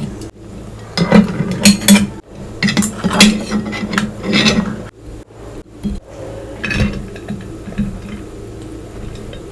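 Dishes and cutlery clattering, with a quick run of knocks and scrapes for the first few seconds and only a few lighter knocks after that.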